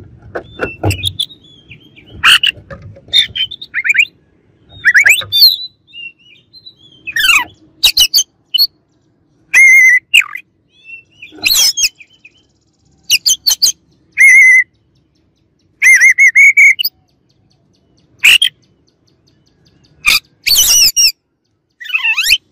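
Oriental magpie-robin (kacer) singing a loud, varied song: short phrases of clear whistles, fast trills and sharp clicks, broken by brief pauses.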